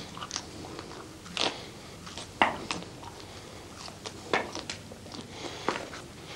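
Broken glass shards crunching and clinking in a handful of sharp, irregular clicks as they are handled and held to the mouth.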